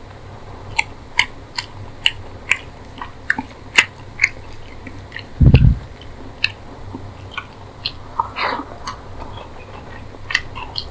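Close-miked chewing and lip smacking of a mouthful of curry and rice eaten by hand, with a run of sharp, wet mouth clicks. About five and a half seconds in comes one loud low thump, and near the end a soft squish as fingers mix rice into the curry on the plate.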